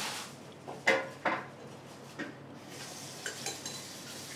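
Dishes clinking against each other in a few sharp, ringing knocks. Past halfway, a steady hiss of running water starts.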